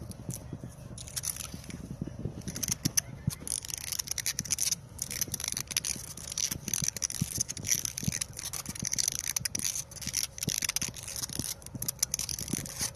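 White grafting tape being pulled off its roll and wound tightly around a walnut graft union, giving a rapid, irregular run of high rasps and crackles.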